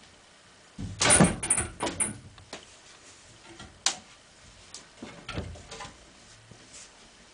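Wooden cupboard door being opened: a burst of clattering knocks about a second in, a single sharp click a couple of seconds later, and softer knocks near the end.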